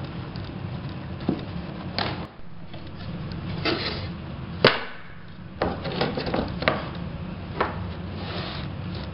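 A series of sharp wooden knocks and taps, the loudest about halfway through, as laminate nosing and tread pieces are handled and set down on a plywood stair tread, over a steady low background hum.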